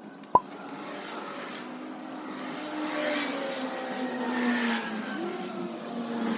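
A single sharp clink, the loudest sound, about a third of a second in, then a motor vehicle engine running steadily, its pitch drifting slowly.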